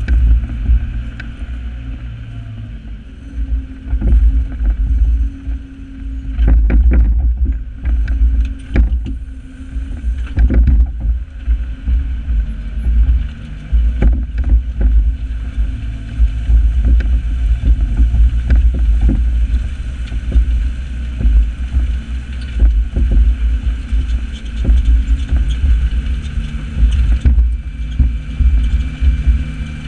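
New Holland 8160 tractor's six-cylinder diesel engine running under load while pulling a plough, a heavy uneven rumble with knocks and rattles throughout. The engine note shifts near the end.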